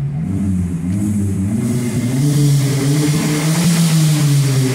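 Volkswagen Polo engine revved with its rear muffler removed, the exhaust sounding out without a silencer: the note climbs about two seconds in, holds high, then eases back down near the end.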